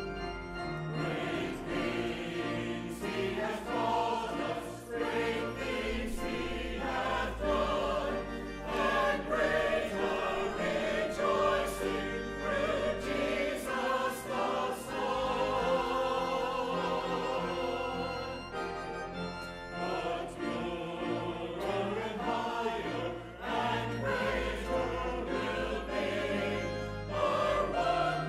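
Church choir singing an anthem in parts, with sustained pipe or electronic organ accompaniment underneath.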